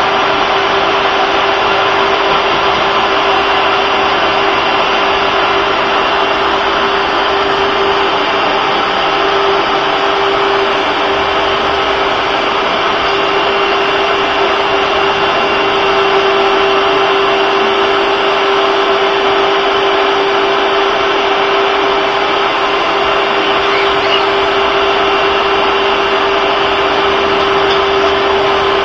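Household vacuum cleaner running steadily: a loud, even rush of air with a steady hum running through it.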